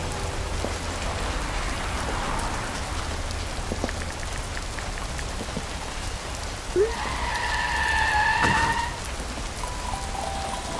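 Steady rain falling. About seven seconds in there is a sudden sharp sound, followed by a held tone lasting about two seconds.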